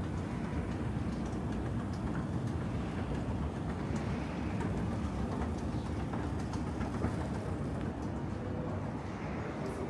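A train running past with a steady low rumble.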